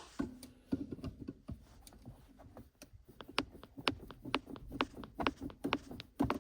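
Irregular sharp clicks and snaps of hard plastic, a few a second and denser in the second half, as the brittle plastic of the old shift boot and knob is cut and broken away from the gear lever.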